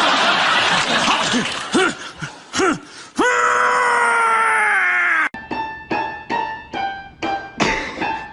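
Noisy cries with sliding pitch, then a drawn-out wail that sinks slowly in pitch and cuts off abruptly about five seconds in. Background music with a quick, evenly repeated keyboard figure follows.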